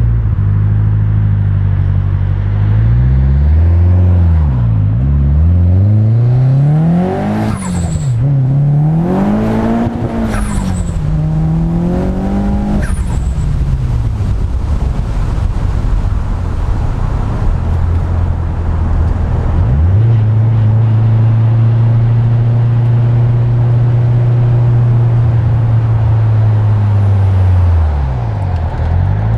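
Nissan 200SX S14's turbocharged SR20DET inline-four revving up and down several times, with brief sharp hissing flares at the peaks. About two-thirds of the way through it settles to a steady engine note, which dips briefly and picks up again near the end.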